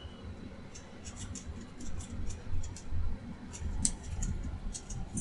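Irregular light clicks and ticks over a low rumble: handling noise from a small handheld camera.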